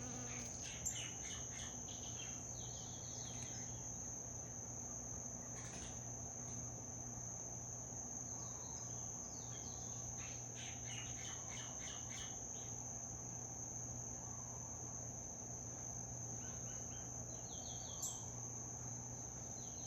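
Insects trilling: a steady, unbroken high-pitched trill, with short runs of quick chirps three times, over a low steady hum.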